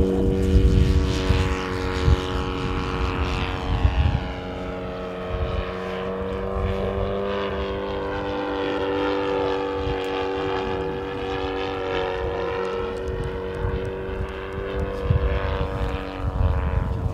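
Saito FG-41TS 41 cc four-stroke flat-twin engine on a radio-controlled model airplane, running steadily at high throttle through the takeoff and climb-out. Its pitch holds even throughout.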